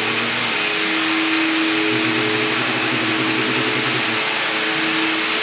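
Electric floor polishing machine for marble running steadily: a constant motor hum over an even rushing hiss.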